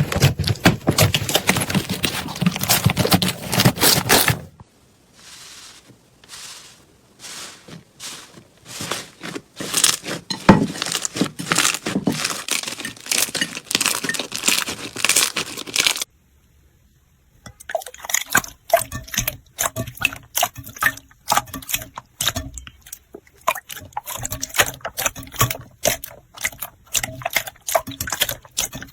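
Slime being squeezed and stretched by hand: runs of wet crackling clicks and pops, in three clips broken by a short silence a little past halfway.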